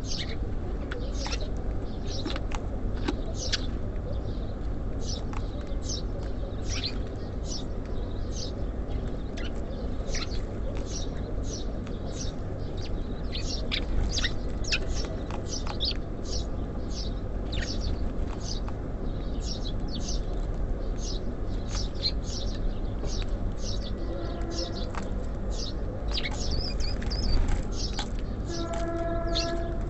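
Small songbirds chirping rapidly and almost continuously at a feeder, over a steady low rumble. Near the end, two brief steady-pitched tones sound about four seconds apart.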